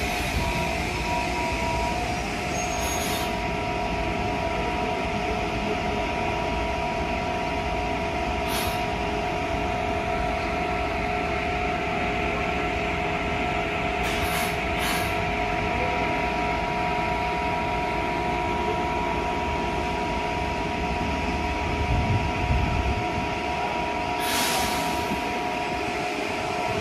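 Metrô-DF Série 1000 electric multiple unit standing at the platform, its onboard electrical and air equipment giving a steady whine. Several short hisses of released air sound at intervals, two in quick succession about halfway through and a longer one near the end.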